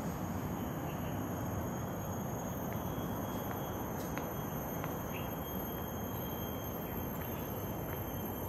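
Steady high-pitched insect chirring, several even tones held throughout, over a constant low outdoor rumble, with a few faint taps of footsteps.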